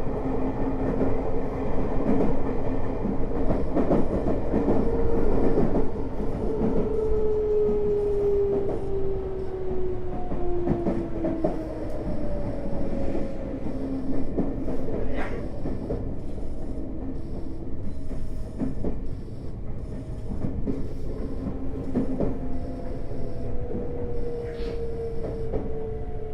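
Tokyo Metro 05 series train heard from inside the car, its Mitsubishi IGBT VVVF inverter whining in tones that fall in pitch as the train slows under braking, over a steady rumble with wheels clicking on rail joints. The falling whine comes twice, once in the first half and again near the end.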